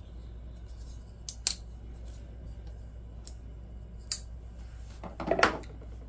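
Closed folding pocket knives clicking and clacking as they are handled and picked up off a rubber mat. A sharp click comes about a second and a half in, then a couple of lighter ticks, then a louder clatter near the end.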